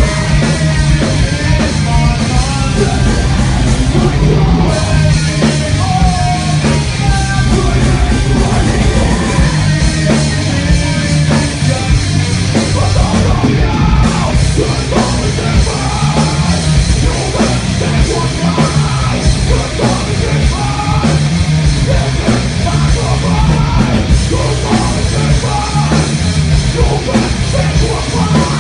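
Live heavy metal band playing loud, with distorted electric guitars, bass guitar and drums, and a vocalist yelling into the microphone.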